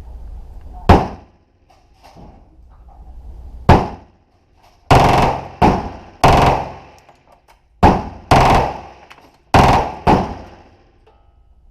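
Gunshots: about nine single shots fired at uneven intervals, each with a short ringing tail.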